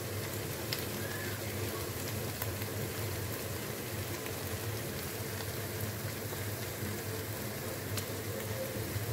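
Aloo qeema (minced meat and potato curry) sizzling and bubbling steadily in a pot, its oil separated and risen to the top, the sign that the curry is cooked through. A steady low hum runs beneath it.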